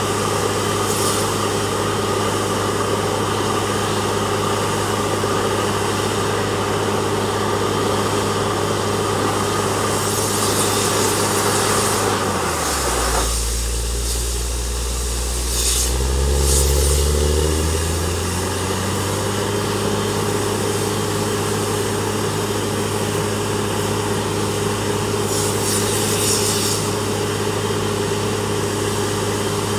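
Truck-mounted borewell drilling rig's engine running steadily. About halfway through, its speed drops low and then climbs back up over a few seconds.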